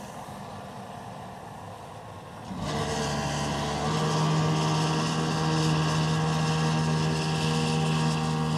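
Tractor engine running as it pulls a slurry tanker spreading slurry on grassland. About two and a half seconds in it turns abruptly much louder, settling into a steady hum.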